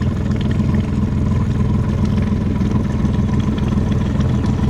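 Motorboat engine running steadily, a constant low-pitched drone.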